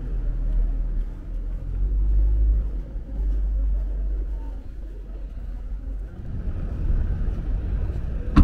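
Low, fluctuating rumble of city street noise, with a short sharp knock right at the end.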